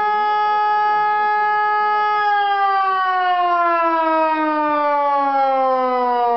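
Fire siren sounding the fire-alarm signal that calls out the fire brigade: a steady tone held for about two seconds, then the pitch falls slowly and evenly as the siren winds down.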